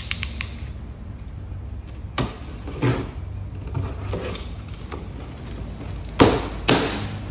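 A packing box being handled and opened: a handful of sharp knocks and short scrapes, the two loudest close together near the end, over a steady low hum.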